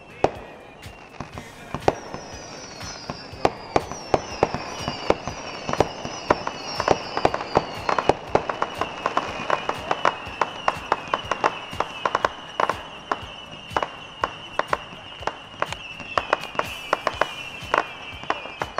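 Fireworks and firecrackers popping in a rapid, irregular string of sharp reports, several a second. Under them runs a steady high whistle, with repeated short falling whistles in the first half.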